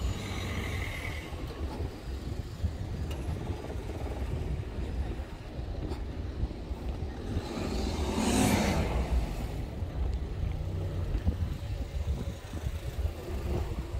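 Traffic of cars creeping past in a queue close by, one car's tyres and engine swelling loudest about eight seconds in, then fading. Wind rumbles on the microphone underneath.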